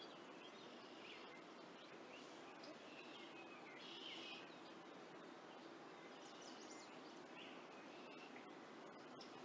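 Faint outdoor ambience with small birds chirping, many short calls scattered throughout and a slightly louder flurry about four seconds in, over a steady low background hiss.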